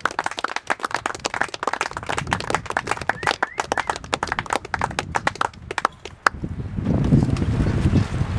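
A small audience clapping, a dense patter of hand claps that stops about six seconds in; a louder low rumble follows.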